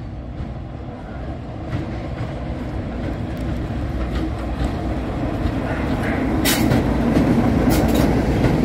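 BR Class 33 diesel-electric locomotive with its Sulzer eight-cylinder engine, approaching and passing close by, its engine rumble growing steadily louder. In the last couple of seconds, as it draws alongside, sharp clicks of the wheels over the rail joints join in.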